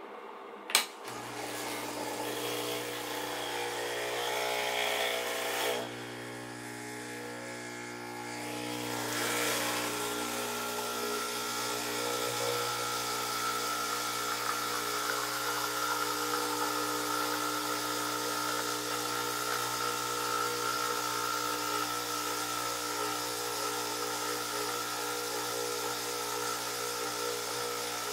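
Breville BES920 dual-boiler espresso machine's vibratory pump humming steadily during an espresso extraction, starting with a click just under a second in. The hum drops for a few seconds around six seconds in and picks up again near nine seconds, where the 7-second pre-infusion gives way to full brewing pressure.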